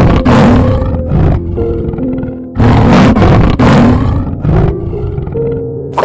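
Big cat roaring in a few deep, rough bursts, two around the start and two more near the middle, over background music.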